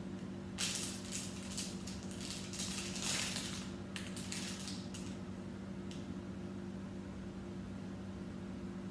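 Small plastic LEGO pieces being picked through and handled, a run of irregular clicks and light clatter for the first five seconds. A steady low hum runs underneath.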